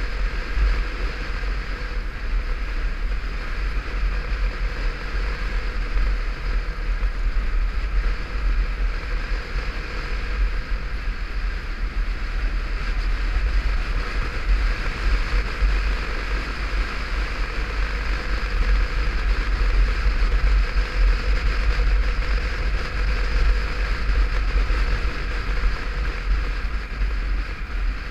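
Wind buffeting a helmet-mounted action camera on a motorcycle riding at steady speed: a heavy, fluttering low rumble, with the steady drone of engine and road noise beneath.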